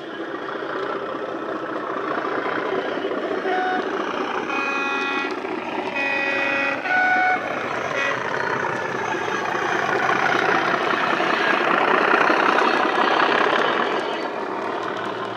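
Model Class 37 diesel locomotive's DCC sound decoder playing a recorded English Electric diesel engine through a small speaker. The locomotive sounds its horn several times between about a third and half of the way in, a few short notes at two different pitches. The engine sound grows louder as the model draws near and passes with its wagons, loudest near the end.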